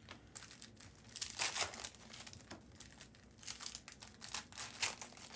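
Wrappers of trading-card packs crinkling and tearing, with the cards handled, in short irregular rustles.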